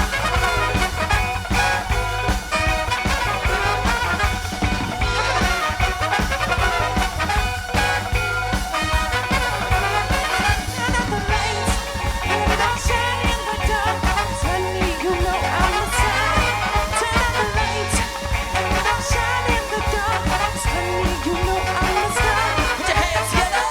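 Live soul band playing an upbeat instrumental stretch of the song, with horns over drums and bass.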